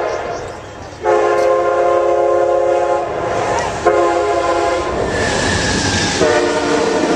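Amtrak passenger train's horn sounding the grade-crossing signal in four blasts: long, long, short, long. The last blast is a little lower in pitch. The rumble and clatter of the train going by rises under the horn from about five seconds in.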